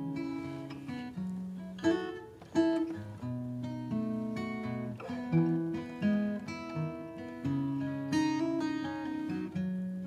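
Acoustic guitar playing an instrumental passage of strummed and picked chords, with no singing. Each chord starts sharply and rings out.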